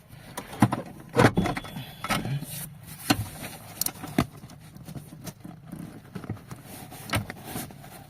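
Irregular clicks and knocks of hands working on a car's cut wiring, with a few sharper knocks, the loudest a little over a second in.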